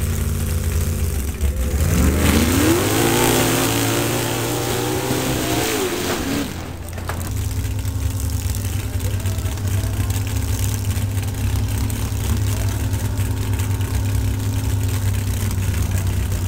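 Mud-drag 4x4 truck's engine revving hard on a run down the mud pit, its pitch climbing for about four seconds and then dropping away about seven seconds in. A steady low engine idle runs under it and carries on afterwards.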